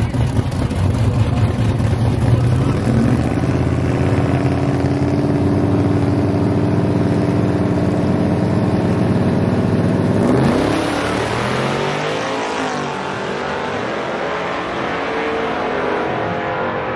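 Two drag-racing pickup trucks' engines running hard at the starting line, revving up about three seconds in. About ten seconds in they launch at full throttle and race off down the strip, the engine note climbing as they pull away.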